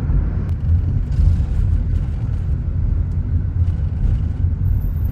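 Steady low rumble of a car driving, heard inside the cabin.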